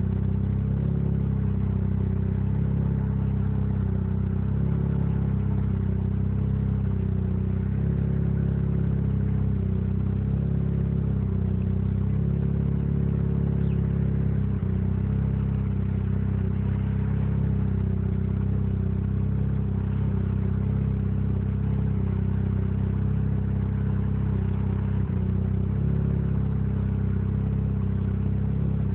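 Mazda 20B three-rotor rotary engine in an RX-7 idling roughly, its pitch wavering slightly up and down instead of holding steady.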